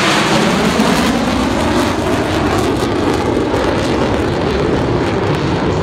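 USAF Thunderbirds F-16 fighter jets flying overhead in formation, their jet engines loud and steady, the tone slowly sweeping as the formation passes and climbs away.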